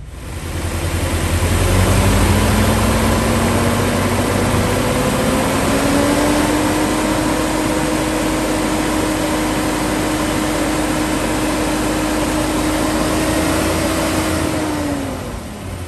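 Mercedes-Benz V8 engine running close up. A whine in its sound climbs slowly in pitch over the first few seconds, holds steady, then drops away near the end.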